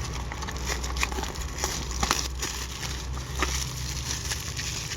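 Cardboard box of trading cards being unwrapped and opened by hand: crinkling wrapper and handling noise with many scattered small clicks and ticks, over a steady low hum.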